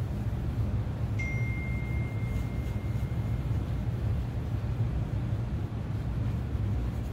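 A steady low rumble of workshop background noise. About a second in comes a single light metallic ping that rings on for nearly three seconds as it fades.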